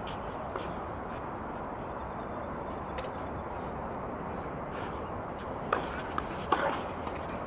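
Steady outdoor background hiss, then near the end a few sharp pops of a tennis ball struck by rackets and bouncing on the court as a serve is returned.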